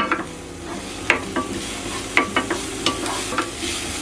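Wooden spatula scraping and knocking against a frying pan as finely minced onion and carrot are stir-fried, about seven irregular strokes over a steady sizzle of oil. The sizzle grows fuller near the end.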